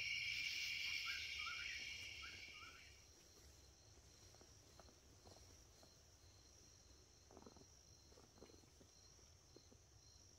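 Night insect chorus: a steady high trilling that fades out over the first three seconds, with a few short rising chirps. Then near silence with faint scattered ticks.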